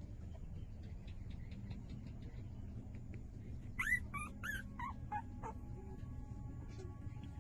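Newborn puppy, about five days old, whimpering: a quick run of about five short, high squeals about four seconds in. Faint small clicks come before it.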